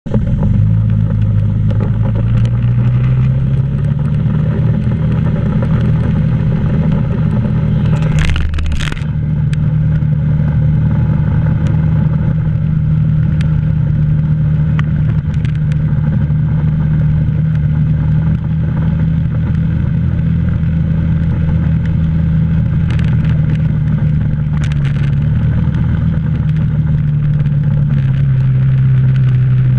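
ATV engine running steadily as the four-wheeler is ridden. Its pitch rises over the first few seconds, holds, then dips slightly near the end. A brief loud clatter comes about eight seconds in, with a couple of smaller knocks later.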